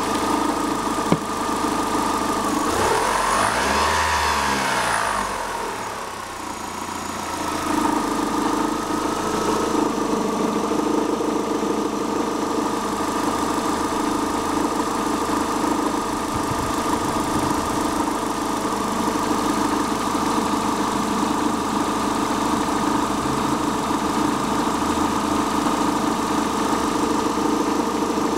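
Astra G 1.6 16V Ecotec (X16XEL) petrol engine idling with a rattling, rumbling vibration, briefly revved up and back down about three seconds in. The vibration appears only at idle and below 1200 rpm, after a new cambelt, tensioner, idlers and water pump, and its cause is unknown.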